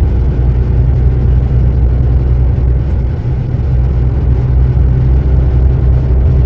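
A lorry's engine and road noise heard inside the cab while driving along, a steady low drone.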